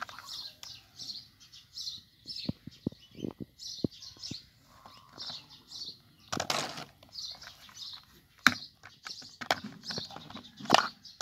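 Small plastic toy trucks being handled: scattered light knocks and clicks of hollow plastic, with a few louder rustles or knocks about six and a half, eight and a half and eleven seconds in. Short high chirps repeat a few times a second behind it.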